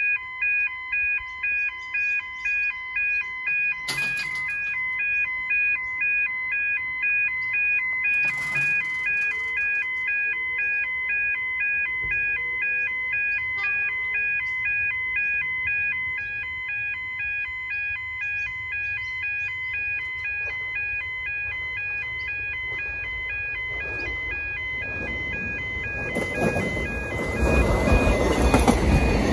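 Level crossing warning bells ringing electronically, a multi-tone chime repeating about twice a second, with two sharp clacks about four and eight and a half seconds in. Near the end a Metro X'Trapolis electric train arrives and passes, a rising rush of wheel and motor noise over the bells.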